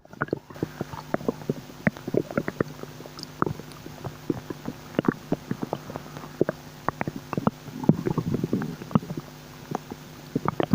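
Human stomach bubbling and gurgling: many short, irregular pops, with a longer gurgle about eight seconds in.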